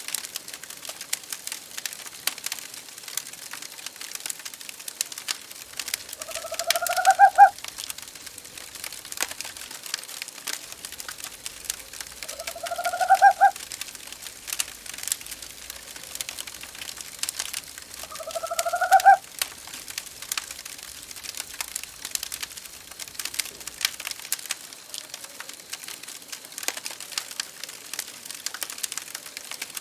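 An owl calls three times, about six seconds apart, each call a rising tone lasting about a second and a half, over a steady crackle of fireplace wood burning.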